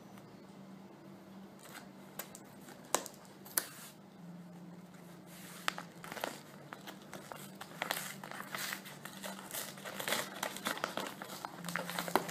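Parcel packaging being forcefully torn open and crumpled by hand: a couple of sharp snaps about three seconds in, then dense crinkling and tearing that grows busier from about halfway.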